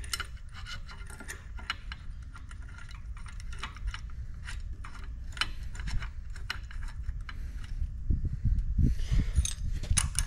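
Steel grinding-wheel guard being fitted by hand onto its mounting block: irregular small metallic clicks, taps and rattles, with a few heavier knocks near the end.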